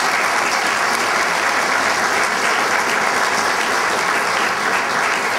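A large audience applauding, a dense, steady clatter of many hands clapping.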